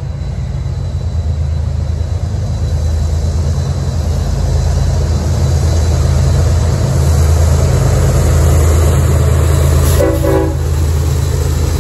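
Norfolk Southern freight train's lead GE diesel locomotives approaching, their engines a deep steady rumble that grows louder as they near. A short horn blast about ten seconds in.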